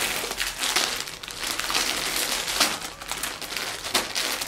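Packaging crinkling and rustling as it is handled, full of quick crackles.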